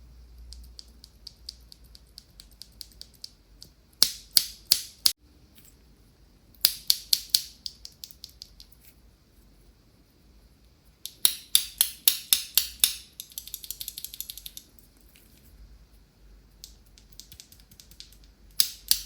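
Mechanical keyboard being typed on: short bursts of sharp key clicks, some loud, with fainter rapid clattering in between.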